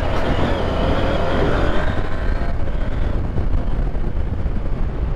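KTM 890 Adventure R's parallel-twin engine pulling hard under throttle on a dirt trail, its pitch rising over the first couple of seconds. It then eases into a steady rush of wind and tyre noise.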